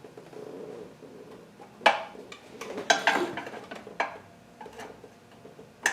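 Sharp metallic knocks and clatter of tools working the Nissan KA24DE's stuck upper oil pan loose: a few separate knocks with a quicker run of clatter about three seconds in. The pan is still held on a locating dowel.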